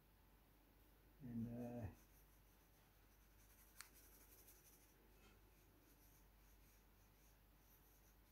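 Pencil faintly scratching on drawing paper as it shades. About a second in there is a short, low, steady hum from a man's voice, and a single sharp click comes near the middle.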